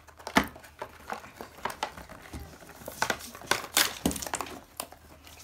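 Toy car blister packaging, plastic bubble and cardboard card, being picked open by hand: irregular crinkling and sharp crackles, busiest about three to four seconds in.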